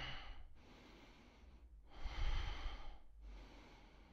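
A man breathing deeply while holding a standing yoga stretch: three long breaths of about a second each, the middle one loudest.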